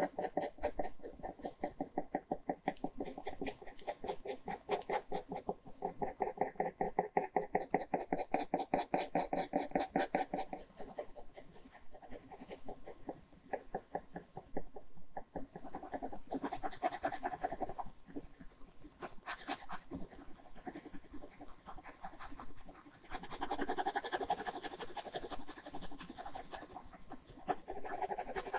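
Ballpoint pen hatching on paper: quick, even back-and-forth strokes, several a second, with denser stretches of scratching in the second half.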